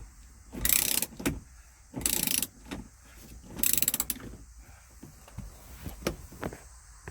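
Socket ratchet clicking in three quick bursts of back-swings as a 14 mm seat belt mounting bolt is backed out, followed by a few single ticks.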